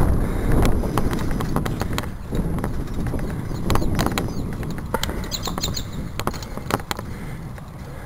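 Wind rumble on the microphone of a bicycle riding along, with irregular clicks and rattles from the bike. A short run of high chirps comes about five seconds in.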